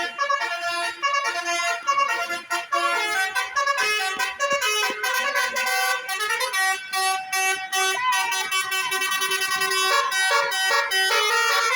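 Bus 'telolet' multi-tone horn playing a fast, continuous melody of changing notes.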